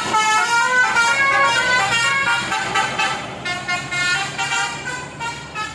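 Basuri horn, a multi-tone melodic vehicle air horn, playing a tune in quick stepped notes with several tones sounding together, fading somewhat near the end.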